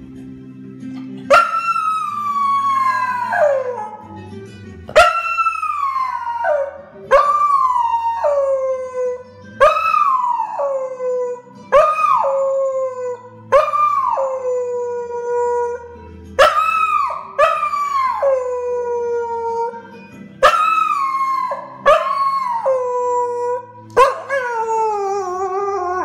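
A dog howling along to music: a run of about eleven long howls, each starting high and sliding down in pitch.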